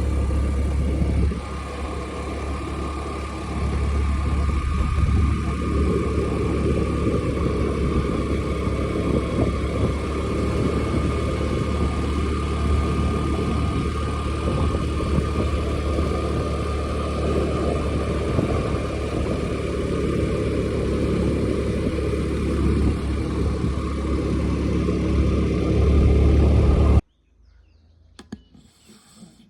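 Small scooter engine running steadily while riding, with a steady whine over a low rumble. It cuts off abruptly near the end, leaving only faint sounds.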